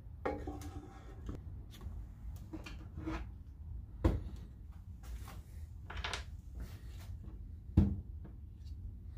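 Scattered clicks and knocks of small hard objects being handled and set down, with two heavier thumps about four seconds and nearly eight seconds in, over a low steady hum.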